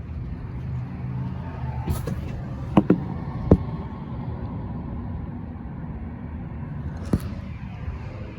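Steady low rumble of passing road traffic, with a handful of sharp knocks: a cluster between about two and three and a half seconds in, the loudest last, and one more near the end.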